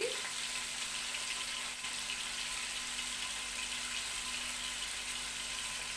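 Chicken drumsticks frying in hot oil in a pan: a steady sizzle, with a faint steady hum under it.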